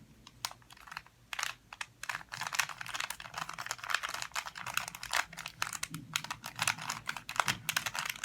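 A plastic Rubik's cube being turned by hand, its layers clicking and clacking in quick, irregular runs, sparse at first and then almost continuous. The owner puts the noise down to the cube's bad plastic.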